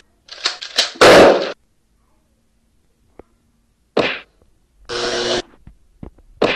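Fighting-game sound effects of blows: a quick run of short hits with one loud noisy whack about a second in, then a pause. Another hit comes near four seconds, then a brief buzzing tone around five seconds, and more quick hits near the end.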